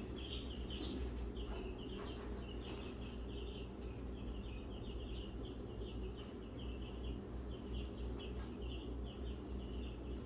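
Continuous high chirping, many short notes in quick irregular clusters at one steady pitch, over a low steady hum.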